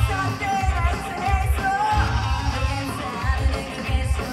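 Live rock band playing a J-rock song: a woman singing lead over distorted electric guitars, bass and a steady drum beat.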